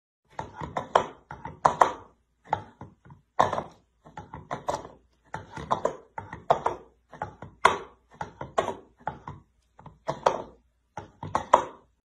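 An irregular series of knocks and taps, coming in quick little clusters about once or twice a second.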